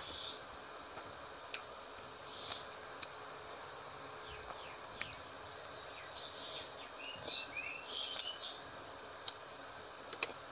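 Close-miked eating by hand: wet chewing and lip-smacking mouth sounds with sharp clicks, thickest about six to nine seconds in as a mouthful of rice and fish curry is eaten, over a steady low hiss.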